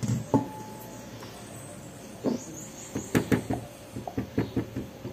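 Light, irregular taps and knocks of kitchen utensils on a stand mixer's bowl: a couple near the start, then clusters of quick taps from about two seconds in. The mixer is not running.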